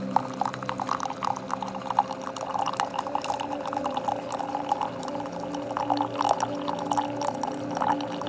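Keurig K-Elite single-serve coffee maker brewing: a steady pump hum, with coffee streaming and splashing irregularly into a mug.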